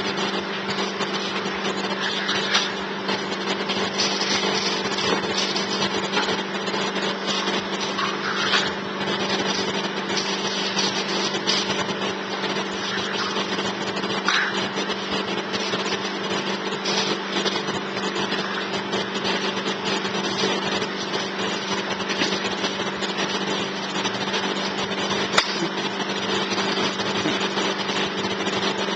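A small motor running steadily throughout, its hum holding one unchanging pitch, with a few brief faint sounds a few seconds apart and one sharp click near the end.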